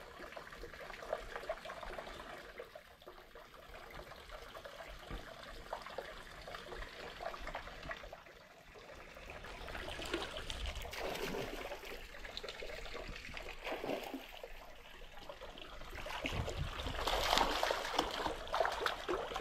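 Faint water trickling, then a hooked catfish splashing and thrashing at the surface right by the concrete canal bank, loudest over the last three seconds.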